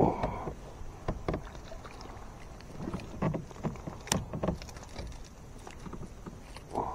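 Irregular knocks and clicks of an angler moving and handling gear in a fishing kayak while fighting and landing a fish.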